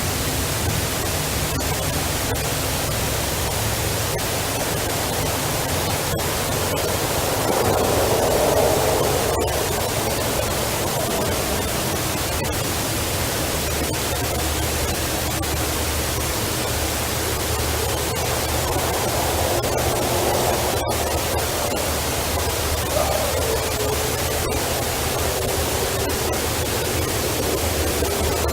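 Steady loud hiss of a heavily amplified outdoor recording. Through it come a few faint drawn-out sounds in the middle range, about 8 and 20 seconds in, and one that falls in pitch about 23 seconds in.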